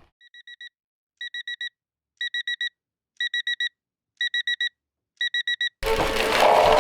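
Electronic alarm clock beeping in quick groups of four, about one group a second, the first group fainter than the rest. Near the end a louder, noisier sound cuts in over it.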